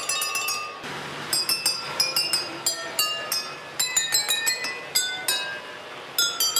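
Water-filled wine glasses struck one after another by small mallets on a passing model train, each ringing out a clear note to play a melody; the pitches are tuned by how full each glass is. The strikes pause briefly about a second in and again shortly before the end.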